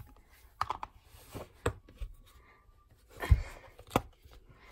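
A plastic slime container being handled and its clear plastic lid pressed on: a few scattered clicks and knocks, the loudest a dull thump a little past three seconds in.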